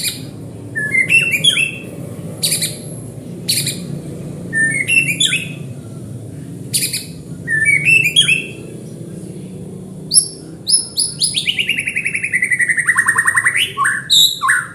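White-rumped shama singing: short bursts of sharp whistled notes and clicks every second or two, then a long rapid trill that slides down in pitch and turns back up at its end.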